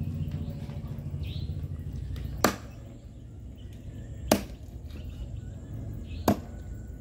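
Knife chopping raw meat on a round wooden chopping block: three sharp chops about two seconds apart.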